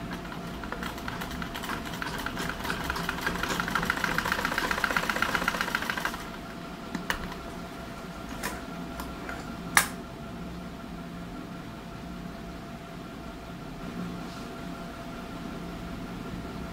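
Sewing machine stitching at a fast, even rhythm for about six seconds, building up and then stopping abruptly. A few sharp clicks follow, the loudest near the middle, over a steady hum.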